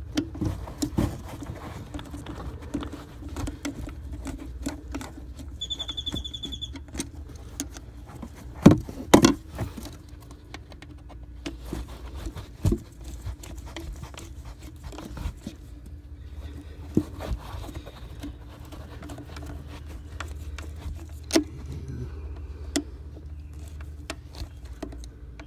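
Scattered clicks, knocks and rattles of hands working with tools and material, with two louder knocks about nine seconds in, over a steady low hum. A short, rapid high beeping sounds for about a second around six seconds in.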